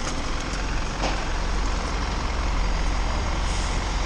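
Busy city street traffic: buses and cars running close by, as a steady mixed noise over a constant low rumble.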